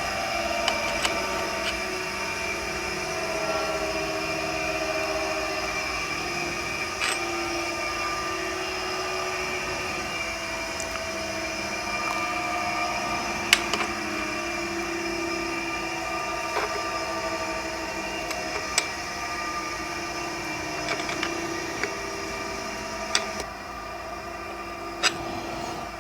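Steady background hum with a few sharp metallic clicks and taps scattered through it, from an Allen key working a small fitting.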